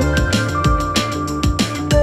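Background music: electronic melody over a steady drum beat.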